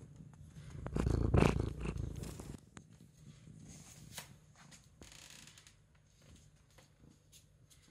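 Domestic cat purring close to the microphone. About a second in there is a louder rustling rub that fades after a second or so, as fur brushes over the microphone.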